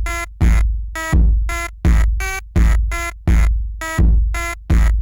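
Electronic music loop: a deep, booming bass kick about every three-quarters of a second, with a bright, buzzy synth note between each kick, repeating without change.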